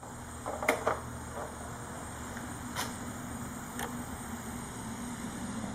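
A few sharp plastic clicks and taps, the loudest about a second in, as the stock turn signal flasher relay of a Honda CBR600RR is unplugged from its connector and pulled out. Under them runs a steady low hum.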